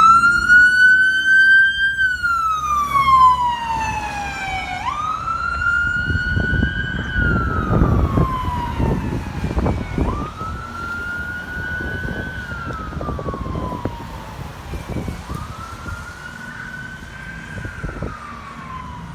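Fire department car's siren wailing: each cycle climbs quickly, then slides slowly down, repeating about every five seconds. It grows fainter toward the end, with the rumble of the passing vehicle in the middle.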